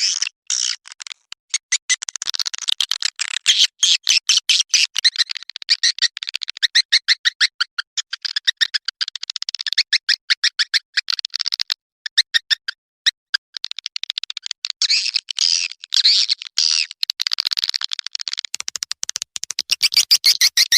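Edible-nest swiftlet calls played as a lure sound: rapid trains of short, high chirps and twitters, many per second, broken now and then by brief gaps.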